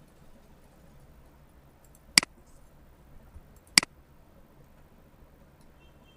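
Computer mouse clicking twice, about a second and a half apart: two short, sharp clicks over a faint steady hiss.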